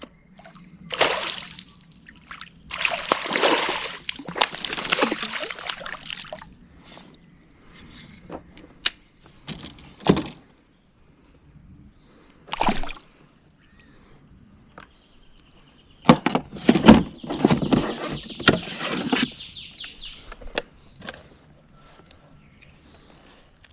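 Water splashing and sloshing in several bursts of a few seconds each, with a few sharp knocks in between.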